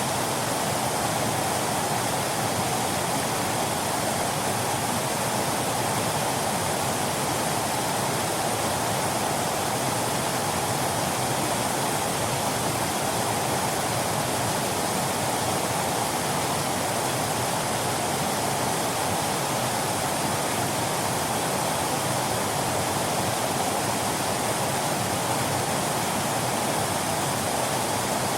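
Waterfall: falling water rushing steadily, an even hiss with no breaks or changes.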